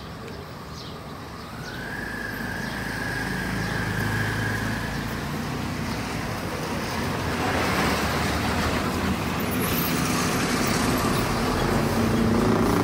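Road traffic: a motor vehicle's engine running and growing steadily louder as it comes near, with road and tyre noise building through the second half.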